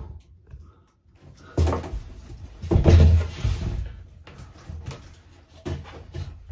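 Knocks, thumps and scraping as a wallboard ceiling panel is pushed up and fitted overhead. The heaviest thumps come about two to three seconds in, followed by a few sharp knocks near the end.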